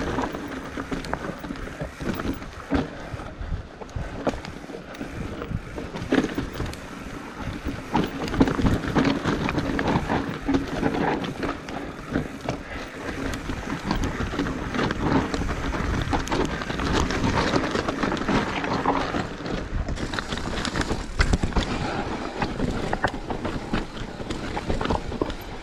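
Commencal Meta Trail 29 mountain bike descending a rocky trail. Tyres roll over rocks with frequent sharp knocks and rattles from the bike, and wind rushes on the microphone.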